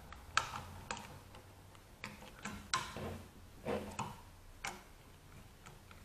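Screwdriver turning the green ground screw on a light switch to tighten the ground wire: scattered small metallic clicks and ticks at irregular spacing.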